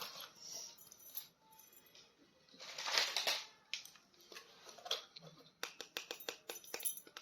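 Small plastic toy figures and their packaging being handled: a brief rustle about three seconds in, then a quick run of light plastic clicks and taps.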